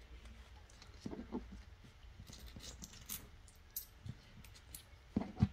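Faint handling noises: a foil trading-card pack wrapper crinkling, with a few soft knocks of cards and objects set down on the playmat, the loudest two just before the end.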